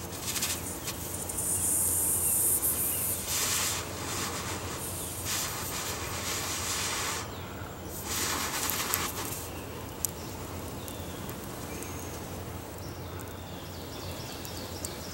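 Breath blown through a Fire Blowing-Tube, a small collapsible tube, into a tinder nest holding a char-cloth ember to fan it into smoke and flame. The air rushes in several long blows with short pauses for breath through the first nine seconds or so, then it goes quieter.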